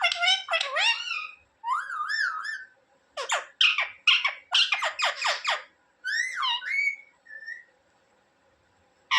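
Pet Indian ringneck parrot calling and whistling: a string of short, pitch-bending calls and a warbling whistle, falling quiet for the last second or so.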